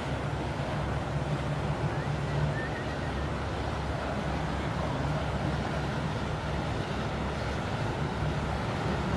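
Steady low engine hum of a motor-driven replica galleon tour boat passing close by, with rushing water and wind noise.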